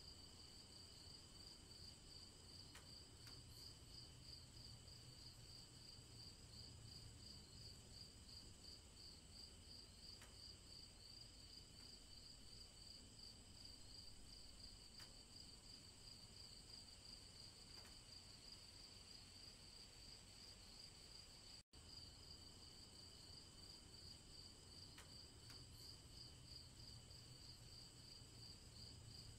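Crickets chirping in a faint, steady, high-pitched pulsing chorus, with a momentary dropout about two-thirds of the way through.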